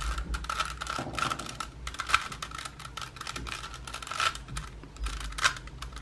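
A 3x3 Rubik's Cube's plastic layers being turned quickly by hand: a run of short clicks and clacks as a sequence of moves inserts a second-layer edge piece.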